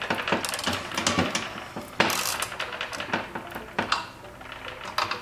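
Steel wrench working the track-tension adjuster nut on a snowblower's track drive: a string of metallic clicks and clinks as the wrench is turned and repositioned, with one louder clank about two seconds in.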